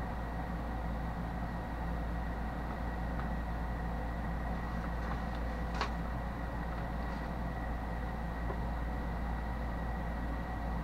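Steady electrical hum and hiss with a thin high whine, broken by a single sharp click about six seconds in.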